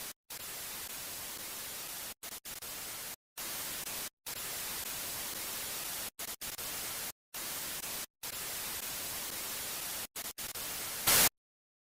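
Television static hiss, broken by short silent dropouts about a dozen times as a glitch effect, with a brief louder burst just before it cuts off near the end.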